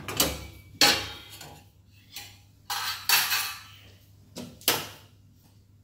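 Thin stainless steel burner plates from a gas hob clanking against each other and the hob as they are handled: about six sharp metallic clanks, each ringing briefly.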